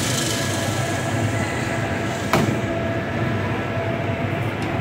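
Steady mechanical hum and rumble, with one sharp knock a little past halfway.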